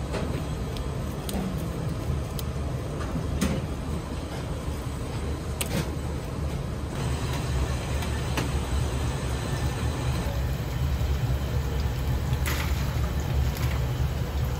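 Steady low rumble of commercial kitchen equipment, with scattered clicks and clinks of utensils.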